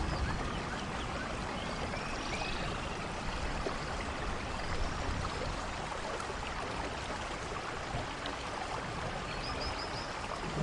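Steady rain falling in a forest, an even hiss, with a few faint high bird chirps now and then.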